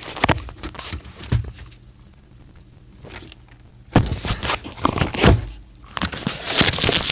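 Rustling, rubbing and knocking of a phone being handled with its microphone brushed and covered. A cluster of clicks comes in the first second or so, then it goes quieter, and louder bursts follow from about four seconds in.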